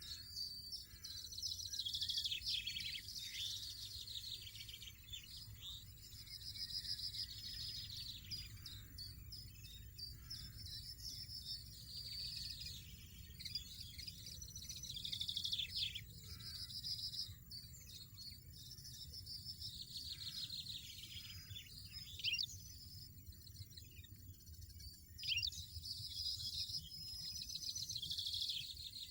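European goldfinch song: phrases of fast, liquid twittering trills and chatters lasting a few seconds each, with two sharp louder notes near the end, over a steady low rumble.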